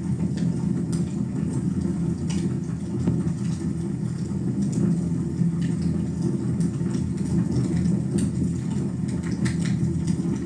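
Wood fire burning in a fireplace: a steady low rumble from the flames with scattered sharp crackles and pops.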